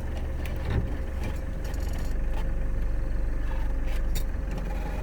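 Vehicle driving slowly on a rough dirt road: a steady engine and road rumble that swells for a couple of seconds in the middle, with scattered knocks and rattles.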